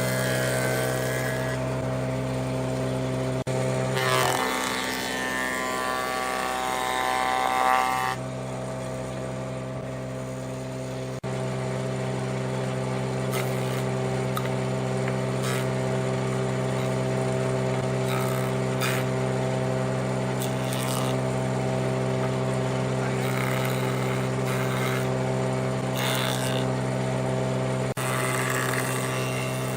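A woodworking power tool's electric motor running with a steady hum. About four seconds in, its sound changes for a few seconds while it works the wood, then it settles back to running freely.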